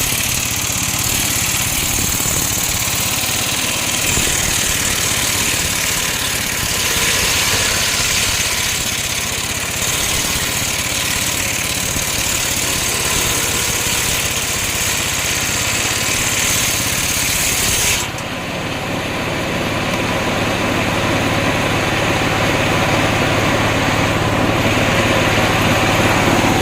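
Homemade engine-driven circular sawmill ripping a coconut log: the engine runs steadily under a loud high hiss from the blade. About two-thirds of the way through, the hiss cuts off suddenly and the engine's steady hum carries on.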